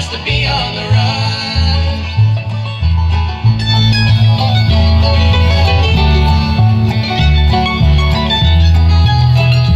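Acoustic bluegrass band playing an instrumental passage: banjo and guitar picking over a bass line that moves from note to note.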